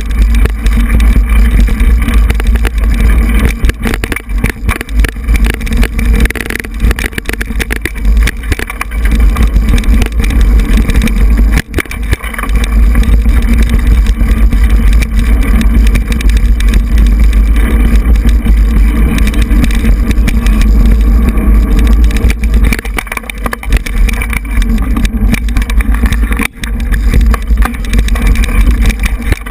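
Mountain bike riding a dirt singletrack, heard through a handlebar-mounted GoPro: loud, steady rumble of wind and vibration on the microphone, with many small jolts and rattles from the bike over the rough trail.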